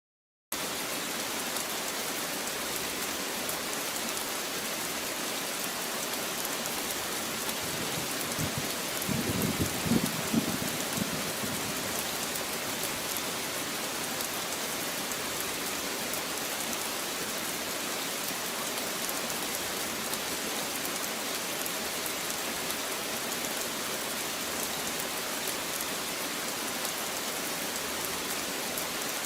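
Steady, even hiss like falling rain, with a short cluster of low thumps about nine to eleven seconds in.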